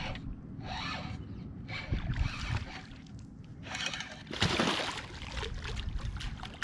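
Water sloshing and splashing against a fishing boat's hull in irregular bursts, over a steady low rumble.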